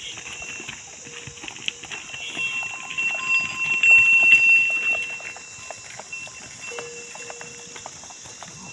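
Livestock moving, with many small hoof clicks. A steady high-pitched tone swells and is loudest in the middle.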